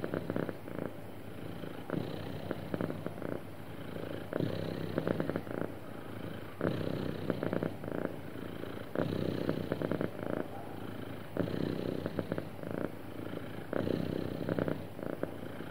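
Domestic cat purring steadily, the purr swelling and easing with each breath about every two to three seconds.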